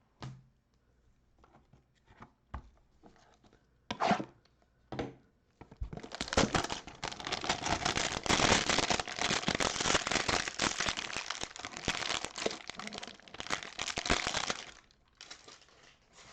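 Plastic wrapper on a trading-card hanger box tearing and crinkling as it is opened: a few light handling clicks, then about nine seconds of dense crackling and tearing, easing into lighter crinkling near the end.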